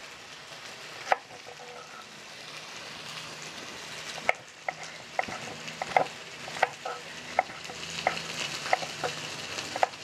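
Knife cutting a chile güero into rings on a wooden cutting board: irregular sharp taps, sparse at first and coming about once or twice a second in the second half. Underneath, the steady sizzle of liver browning in oil on a comal.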